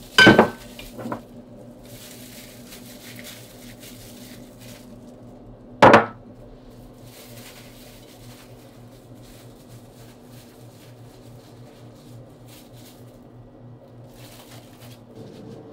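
Dishware being handled while breaded chicken pieces go into a buttered baking dish: a sharp ringing clink just after the start and another about six seconds in, with a smaller knock between and soft rustling of the crumb-coated pieces, over a steady low hum.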